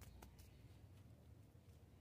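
Near silence: faint background hum with a few soft clicks in the first half second.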